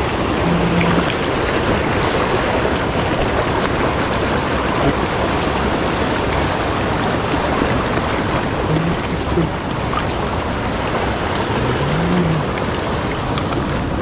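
Mountain stream water rushing in a steady, even wash.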